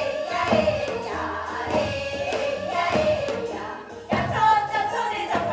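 Korean Seodo (northwestern) folk song: voices singing with a traditional Korean instrumental ensemble.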